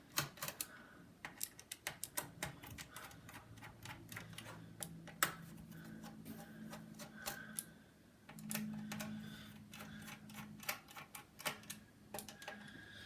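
Precision screwdriver backing out small screws from a laptop's plastic base: many light, irregular clicks and ticks of the bit and screws, over a faint low hum at times.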